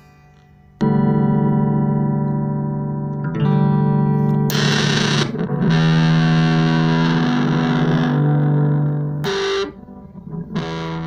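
Electric guitar played through a MAD BOX Big Muff-style fuzz pedal: distorted chords struck and left to sustain, the first about a second in, a brighter, denser stretch from the middle, then a drop-off and one more chord near the end.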